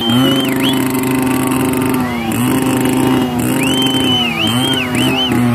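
Music: a buzzing, reedy melody of held notes that step from pitch to pitch, with high sliding, wavering notes above it.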